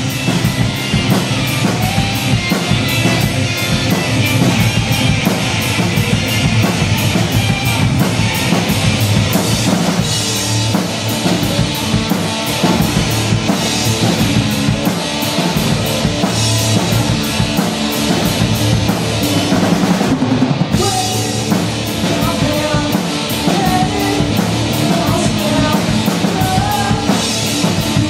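Live punk rock: a drum kit and an electric guitar through a Marshall amplifier playing loudly and steadily.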